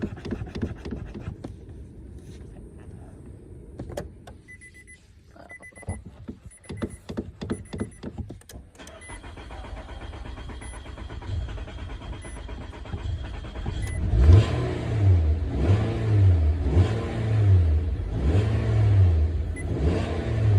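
Car being hard-started: clicking and a repeating warning chime, then about two-thirds of the way in the engine cranks over loudly, its sound rising and falling about once a second.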